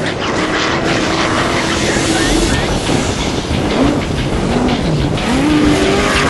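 Off-road desert race vehicle engine revving up and down under loud, rushing noise.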